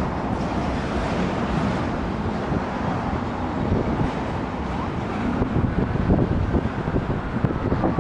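A train rolling past with a steady rumble and wheel noise, with wind buffeting the microphone.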